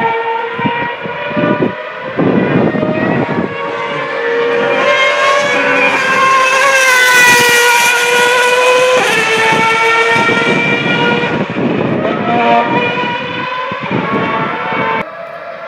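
Formula One car's 2.4-litre V8 engine at high revs, its high-pitched note rising and growing loudest about seven to eight seconds in as the car runs past on the track below, then falling away.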